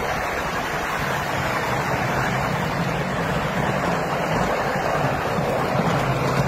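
A 7.25-inch gauge miniature train running along its track: a steady rumble of wheels on the rails with a faint low hum from the locomotive.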